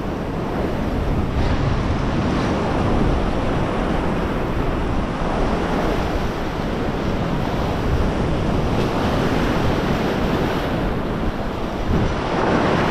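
Ocean surf surging and washing over a rock ledge, a steady loud rush of water, with wind buffeting the microphone.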